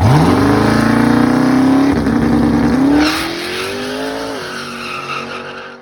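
Car engine revving up fast and held at high revs, with tyre squeal; the pitch climbs again about three seconds in, then the sound fades out near the end.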